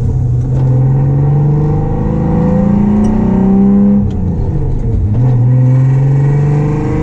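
Nissan 300ZX's V6 engine pulling hard under acceleration, its pitch climbing steadily, then falling at a gear change about four seconds in before climbing again.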